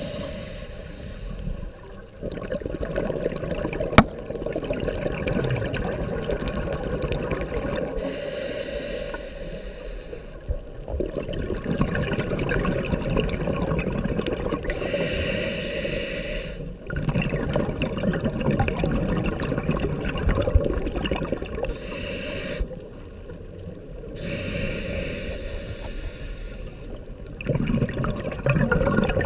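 Scuba regulator breathing heard underwater. A hissing inhale through the demand valve comes every several seconds, and each is followed by a longer rumble of exhaled bubbles. A single sharp click comes about four seconds in.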